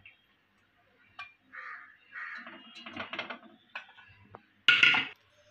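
Kitchen utensil sounds from straining jaggery syrup: a metal pan knocking and scraping against a plastic strainer over a pot, in scattered clicks and short scrapes. A short, loud, harsh sound comes near the end.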